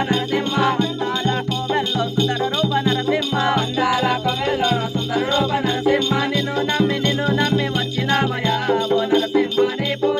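Live Telangana folk music with a large two-headed dolu drum beating a fast, steady rhythm under constant rattling, jingling percussion. A wavering melody line runs over it.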